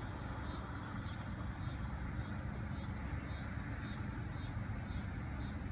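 Steady low outdoor rumble, like distant traffic, with a faint high-pitched chirp repeating about twice a second.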